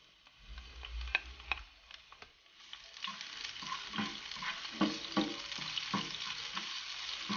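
Garlic sautéing in hot oil in a pan, with the utensil clicking and scraping against the pan. A few knocks and clicks come first, then a steady sizzle starts about three seconds in and keeps going.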